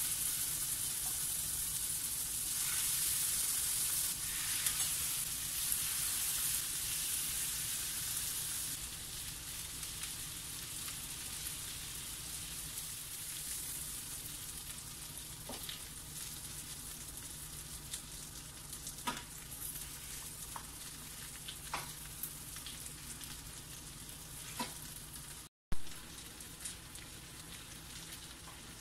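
Lamb loin chops sizzling in hot oil in a nonstick frying pan. The sizzle is loudest for the first several seconds after the meat goes in, then settles to a steadier, quieter sizzle, with a few light clicks of metal tongs against the pan.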